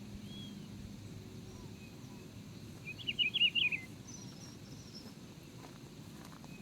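Birds calling outdoors over a steady low background noise. About three seconds in, one bird gives a short burst of rapid chirps, the loudest sound, with fainter single calls before and after it.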